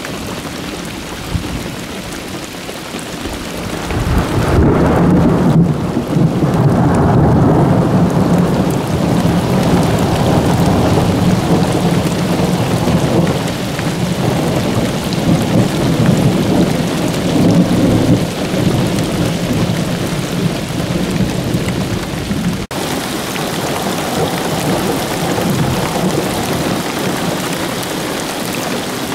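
Steady rain with a long roll of thunder that builds about four seconds in, rumbles for over ten seconds and slowly fades.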